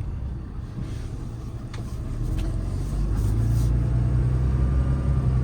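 Ram 5500's Cummins 6.7 inline-six turbo diesel pulling the truck along with tyre and road noise, the rumble growing louder about three seconds in as it picks up speed.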